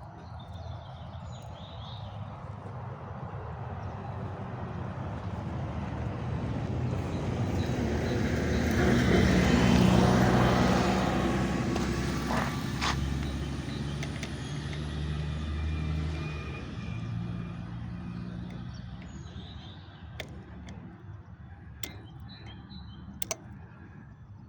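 A motor vehicle passes by. Its engine and tyre noise grows steadily louder to a peak about ten seconds in, then fades away. A few sharp clicks come near the end.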